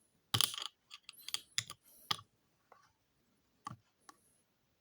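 Irregular handful of sharp clicks and taps from small plastic containers and lids being handled, the loudest about half a second in.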